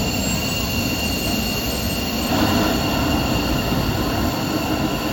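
Loud, steady jet engine noise from fighter aircraft, a continuous rumble with a thin high whine over it, swelling slightly about two seconds in.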